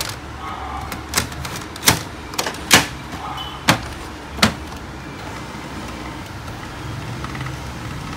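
Plastic clicks and knocks as a Canon 337 toner cartridge is seated in a Canon imageCLASS MF221d laser printer and the printer is closed: about seven sharp clicks in the first four and a half seconds. After that comes a low, steady hum as the printer starts up for a test print.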